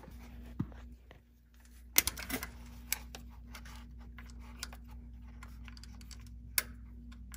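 Scattered light metal clicks and taps of a small pry tool working at engine parts, with a quick cluster of clicks about two seconds in, over a steady low hum.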